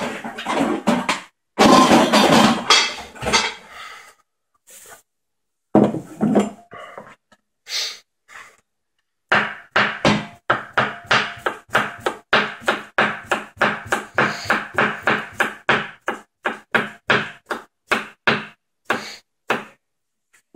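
A knife chopping on a cutting board. Irregular knocks and clatter come first; after about nine seconds it settles into a steady run of chops, about three a second, for some ten seconds.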